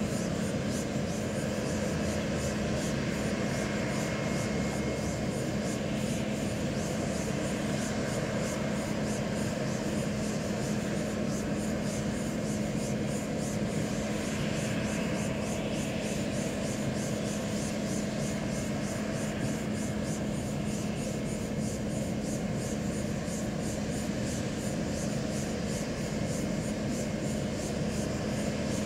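Boeing 777-200ER jetliner on final approach, heard as a steady distant jet rush with a constant low hum underneath, holding an even level throughout.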